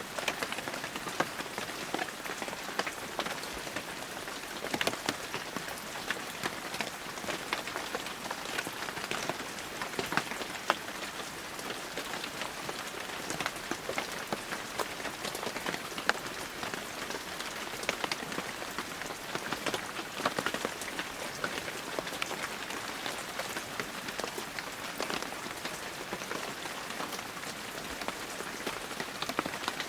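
Heavy rain falling steadily, a dense hiss with many individual drops pattering sharply on surfaces.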